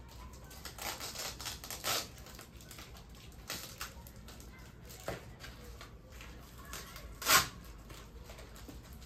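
Brown paper and cardboard packaging around a potted plant being crinkled and pulled off by hand: irregular rustling, with one brief, louder crackle about seven seconds in.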